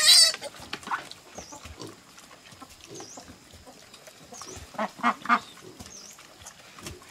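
A domestic duck quacking three times in quick succession about five seconds in. A loud, shrill high-pitched burst sounds right at the start.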